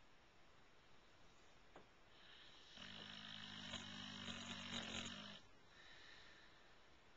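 A bulldog snoring: one long snore with a low buzzing tone starts about three seconds in and lasts between two and three seconds. Before and after it there is only faint breathing.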